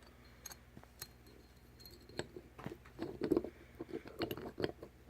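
Light clicks and small scrapes of metal hub parts being handled, as the spring and shim are set into a greased Warn locking hub. The clicks grow more frequent about two seconds in.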